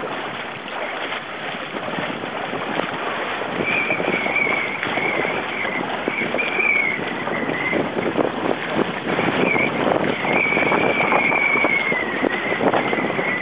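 Strong gusty wind on the microphone over water rushing and splashing against the hull of a small outrigger sailing canoe under way. From about three or four seconds in, a wavering high whistle comes and goes above it.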